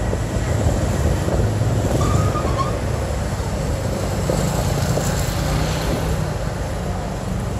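Motorbike engine running steadily during a ride, with wind buffeting the microphone.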